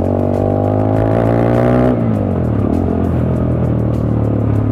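Bajaj Dominar 250's single-cylinder engine running through a silencer with its packing removed, giving a loud, heavy exhaust note. The note rises a little, then drops off about two seconds in and settles steady.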